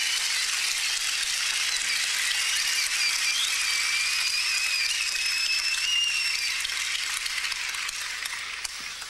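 Audience applauding and cheering as a song ends, with someone whistling a long high note from about two seconds in to past six; the applause dies down near the end.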